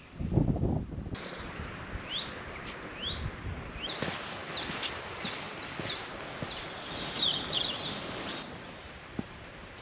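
Songbirds singing over a steady hiss, with a fast run of short, sharp sweeping notes, about three or four a second, from about four seconds in until shortly before the end. A brief low rumble comes at the very start.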